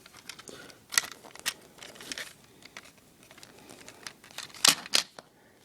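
Handling noise from a plastic Transformers Ratchet ambulance toy: light rustling with a few sharp plastic clicks, about a second in and again near the end.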